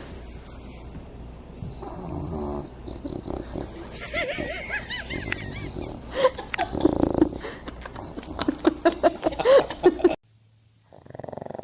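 A sleeping dog snoring in rough, rasping breaths, joined later by wavering squeaky sounds and a run of sharp clicks that stop abruptly near the end.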